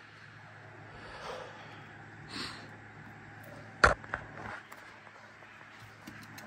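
A boulderer's soft breathy puffs as he hangs on an overhanging sandstone roof, then a single sharp knock about four seconds in as he moves on the rock, followed by a couple of softer taps.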